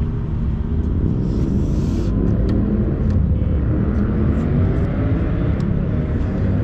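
Steady low rumble of street traffic, with a vehicle engine rising in pitch through the middle.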